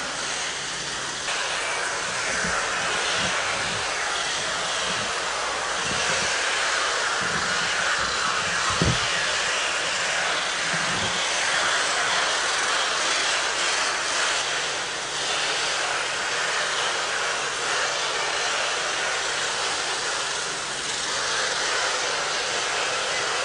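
A steady rushing noise, with a few low thumps in the first half.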